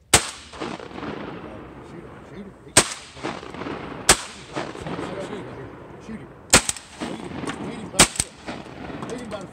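Volley of shotgun blasts from hunters firing at ducks overhead: about six sharp shots, some in quick pairs, each ringing out in a decaying echo.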